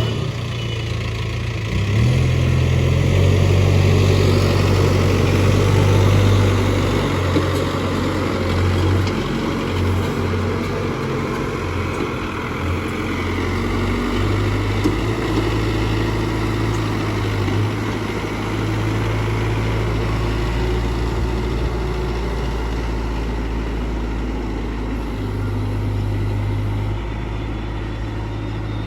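Case 770EX backhoe loader's diesel engine running through loader work, its note stepping up and down as the load changes, with a single sharp knock about halfway through.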